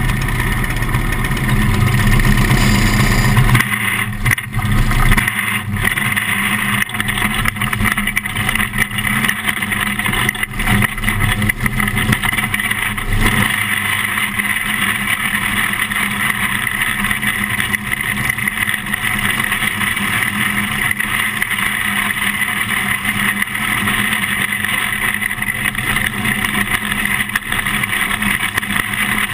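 Onboard sound of a small winged dirt-track race car's engine running hard and steadily. The sound changes abruptly about three and a half seconds in, then holds steady.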